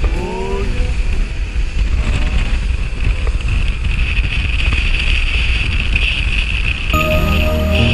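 Wind blasting the microphone over the steady rush of water and spray from a rigid inflatable boat running at speed, with its outboard motor's low drone underneath. Music comes in near the end.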